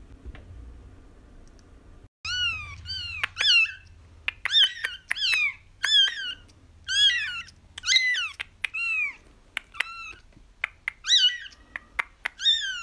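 Very young kitten mewing over and over in short, high, thin calls that each fall in pitch, about two a second. The calls start about two seconds in.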